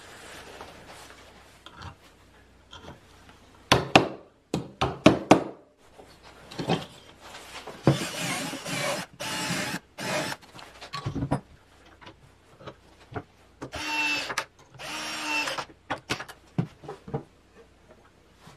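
A cordless drill boring into a pine board in short bursts, with clicks and knocks of tools and parts being handled between them.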